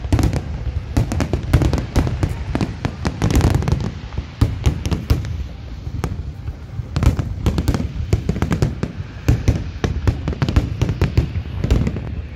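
Fireworks display: a dense barrage of aerial shells bursting, many sharp cracks in quick succession over a continuous low rumble, easing briefly near the middle before building again.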